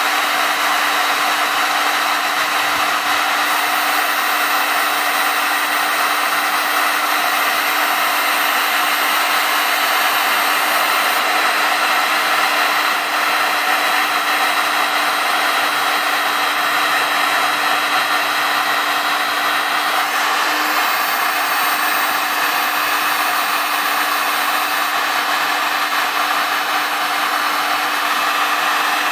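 Electric heat gun running steadily: a constant rush of blown air with a steady hum under it.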